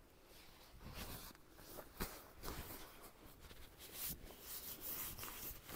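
Faint, irregular rustling of nylon fabric and gear being handled and packed into a backpack, with a sharp click about two seconds in.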